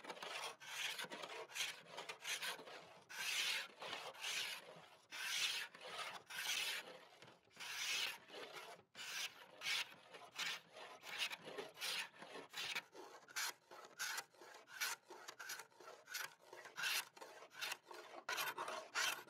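Hand scraper drawn in quick repeated strokes across a walnut-veneer tabletop, rasping off the old finish, about one to two strokes a second.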